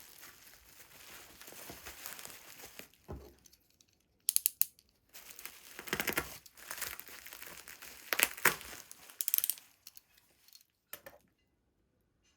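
Packaging being handled and torn open: paper and plastic crinkling and tearing in bursts, with a few sharp clicks about four seconds in and a short knock near the end.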